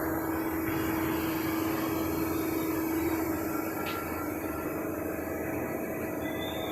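Wire ring forming and butt welding machine running: a steady mechanical hum and hiss, with a faint click about four seconds in.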